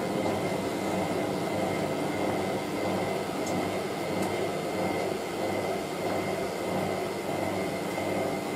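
Hotpoint 9530W front-loading washing machine's motor and drum running steadily as it starts the second intermediate spin with a load of wet towels, a steady motor whine over the drum's churning noise.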